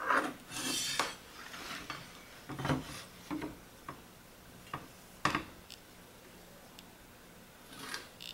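A metal framing square with stair gauges being slid over a wooden board and a pencil scraping along its edge, with a few sharp taps of the square being set down on the wood.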